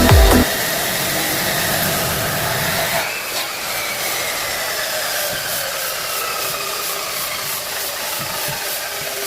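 An electric woodworking power tool running with a steady hiss, its motor whine slowly falling in pitch from about three seconds in as it winds down.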